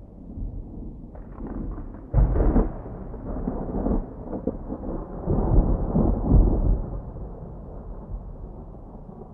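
A thunderclap breaks suddenly about two seconds in, then rolls on in deep, uneven rumbles that peak again around the middle and slowly die away, over a steady hiss of rain.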